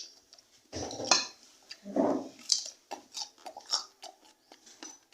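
Cutlery and dishes clinking in a string of short, sharp clicks at a meal, with two louder, fuller sounds about one and two seconds in.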